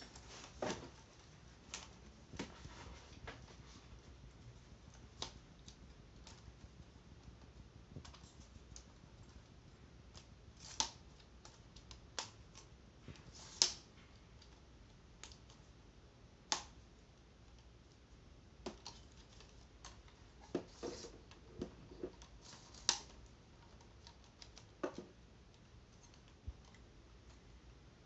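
Scattered, irregular clicks and knocks of a tripod and ring light being handled and adjusted, with a few sharper taps now and then.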